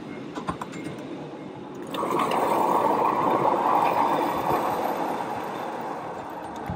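Steam hissing from a miniature railway locomotive: a loud rushing hiss that starts suddenly about two seconds in and slowly fades, after a few light clicks of the train's wheels on the track.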